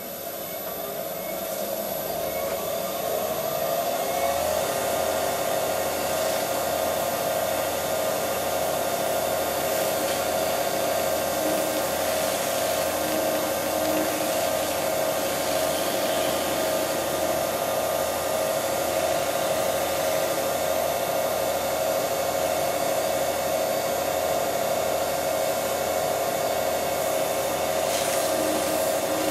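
Record Power Coronet Herald wood lathe's motor spinning up, its whine rising in pitch over the first four seconds or so, then running at a steady speed.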